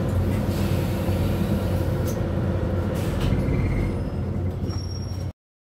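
Cabin noise inside a Scania CityWide LF CNG city bus: the steady low rumble of its compressed-natural-gas engine and drivetrain, with a few short clicks and rattles. The noise eases slightly about four seconds in, then stops abruptly just before the end.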